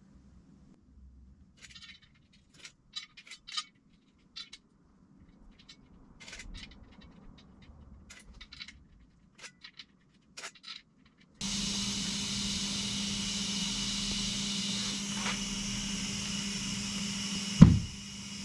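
Scattered light clicks and taps as the tire and beadlock wheel are worked on. About eleven seconds in, a steady rush of air with a hum underneath starts: an air hose inflating a 42-inch Super Swamper Irok tire on a beadlock wheel. A single loud thump comes near the end.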